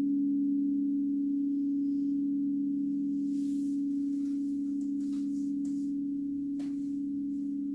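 Crystal Tones alchemy crystal singing bowls sounding a steady, sustained hum of several close low tones. A few faint soft ticks come over the hum in the middle.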